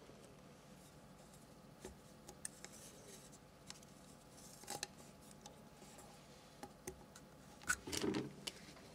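Hard plastic parts clicking and rubbing as a black plastic discharge elbow is pushed onto a garbage disposal's outlet and its clamp worked by hand. The clicks come a few at a time, with the loudest cluster near the end.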